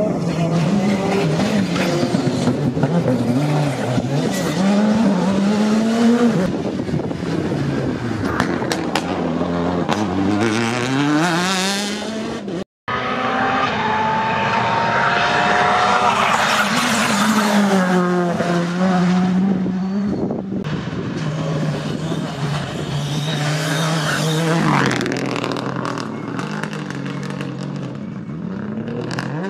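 Rally cars at racing speed on a stage, engines revving hard, the pitch climbing and dropping again and again with gear changes and braking as the cars pass. The sound breaks off for a moment about halfway through, then the next car is heard.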